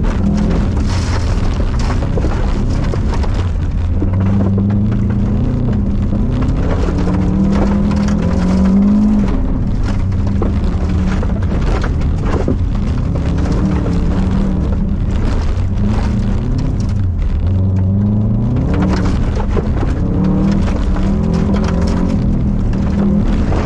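2002 Subaru Impreza WRX's turbocharged flat-four engine heard from inside the cabin at speed on gravel, revving up and dropping back again and again through gear changes and corners. Stones and gravel rattle and knock against the underside.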